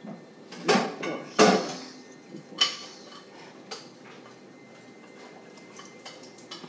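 Clatter of kitchen containers handled on a counter while milk is measured out: three sharp knocks in the first three seconds, a lighter one after, then quieter handling.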